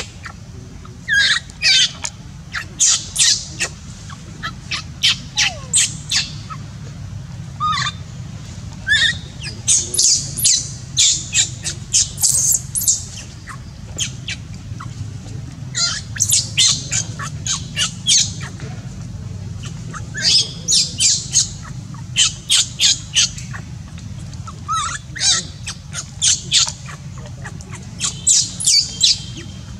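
Baby macaque screaming in distress while writhing on its back: clusters of short, high-pitched shrieks, several a second, with brief pauses between clusters.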